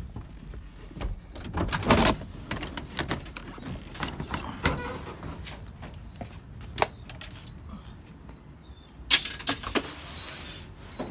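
Scattered knocks, clicks and clatter, with louder knocks about two seconds in and again near the end, the second followed by a short rush of hiss.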